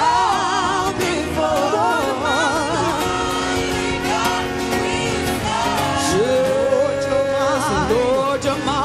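Live gospel band music with an electric guitar playing a lead solo, its notes held with wide vibrato and a slow upward bend about six seconds in, over the band's steady backing.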